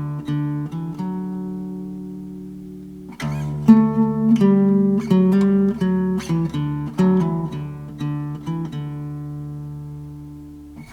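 Background music: acoustic guitar picking notes that ring and die away, with a fresh run of notes starting about three seconds in and fading near the end.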